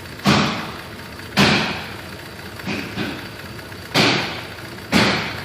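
Cadillac SRX 3.6 V6 engine idling with an intermittent injector fault that makes a cylinder drop out. Over the idle come sudden loud bursts about once a second, each dying away within half a second.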